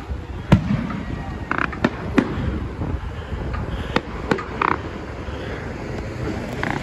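Distant aerial fireworks bursting: about half a dozen sharp bangs at irregular gaps of about a second, over a steady low rumble.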